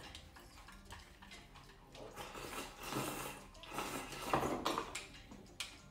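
A person sipping and slurping miso soup from a bowl, in soft swells about two and four seconds in, with a few light clicks of chopsticks against the dishes.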